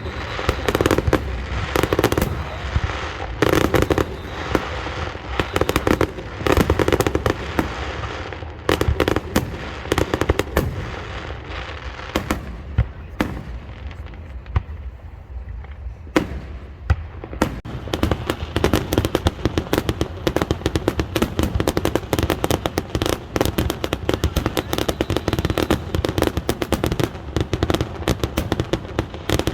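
Aerial fireworks going off: shell bursts with crackling between them, easing off in a lull about halfway through, then a dense, rapid barrage of bangs and crackles for the last third.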